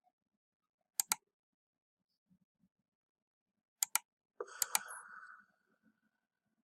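Computer mouse double-clicks, twice, about three seconds apart, followed by a short scraping rustle with two more clicks.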